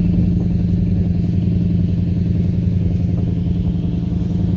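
A vehicle engine running steadily at constant speed, a low, even hum with no change in pitch.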